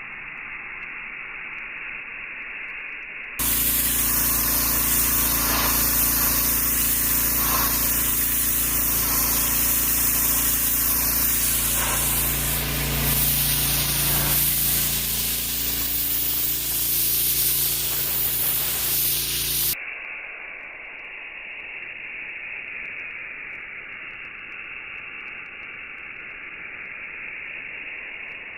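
Gas pressure washer (Stihl RB800 with a Kohler engine) running, its steady engine hum under the loud hiss of the water jet spraying; it cuts in suddenly a few seconds in and cuts off abruptly after about sixteen seconds. Before and after it there is only dull, muffled noise.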